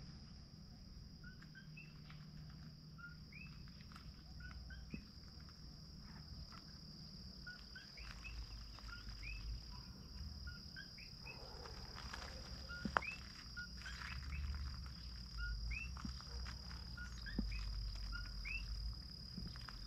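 Several animals giving short two-note chirping calls again and again, a lower note followed by a higher rising one, over a steady high-pitched drone. A low rumble comes in about halfway through.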